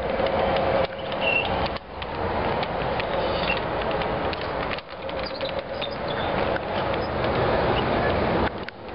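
Large-scale garden railway freight cars rolling past close by: a steady rolling rumble of metal wheels on the track, with scattered clicks.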